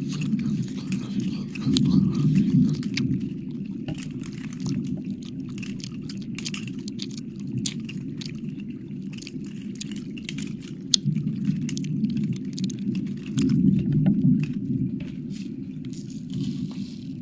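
Close-microphone wet mouth sounds: many quick wet clicks and licks over a steady low rumble that swells louder twice, about two seconds in and near the end.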